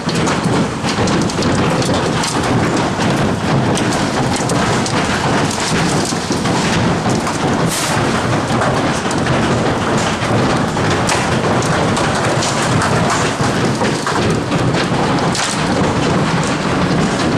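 Heavy hailstorm: a dense, continuous clatter of large hailstones, mostly golf-ball size, striking hard surfaces, with many sharp individual impacts standing out through the din.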